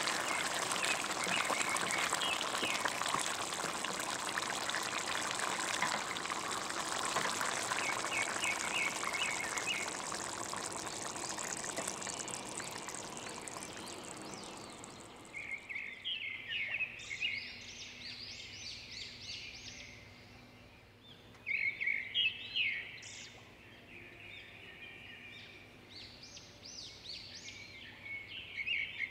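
Okra stew bubbling and sizzling in the pan, a steady hiss that dies down about halfway through once it is off the heat. Birds chirp in short runs of calls, clearest after the hiss fades.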